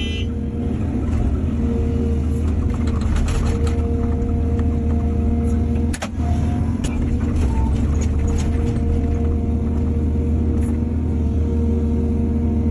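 Excavator diesel engine running steadily, with a higher tone that comes and goes and scattered knocks and clatter, the sharpest about six seconds in.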